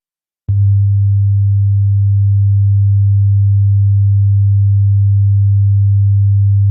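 Hearing-test tone: a single low, steady pure sine tone that switches on about half a second in and holds unchanged at a loud level.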